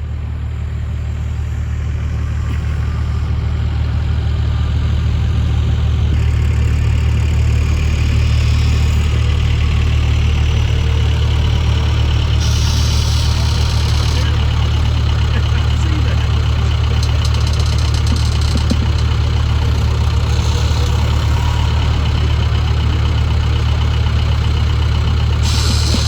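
A vehicle engine running steadily, a constant low hum that builds slightly over the first few seconds and then holds level.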